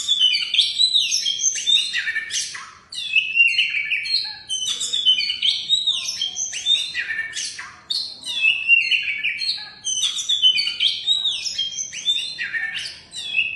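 Oriental magpie-robin (kacer) singing a loud, continuous, varied song of quick whistled and chattering phrases, with short breaks about three and eight seconds in.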